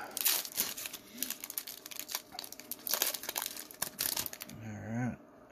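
Foil wrapper of a Pokémon trading card booster pack being torn open and crinkled, then the cards pulled out and handled, a dense crackling throughout.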